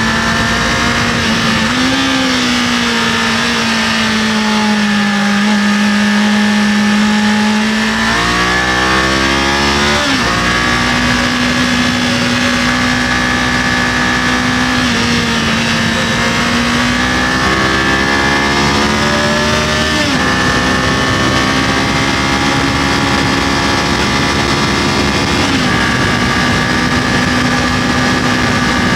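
Kawasaki KLE500 motorcycle engine running under way, heard from the rider's position over a steady rush of wind and road noise. The engine note holds fairly even for long stretches. It sags slowly for several seconds, climbs sharply about eight to ten seconds in, then steps up or down in pitch a few more times as the throttle and gears change.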